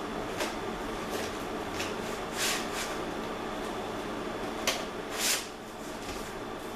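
VHS tape cases being handled: several brief scuffing, sliding sounds and one sharp click about two-thirds of the way through, over a steady low background hum.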